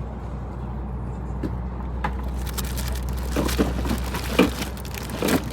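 A steady low hum with a series of knocks and clatters in the second half, the loudest about four and a half seconds in.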